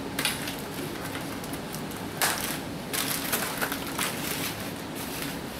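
Plastic packing wrap rustling and crinkling in irregular bursts as it is handled, with a few light clicks from zip ties being cut.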